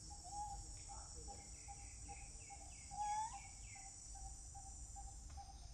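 Forest ambience: a steady high-pitched insect drone, with a bird giving a quick run of about eight short descending notes and a louder short rising call about three seconds in.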